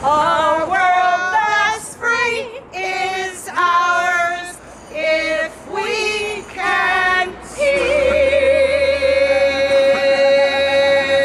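A small group of women singing a song together in unison, with a violin accompanying. The song moves in short phrases, then settles into one long held note for the last few seconds.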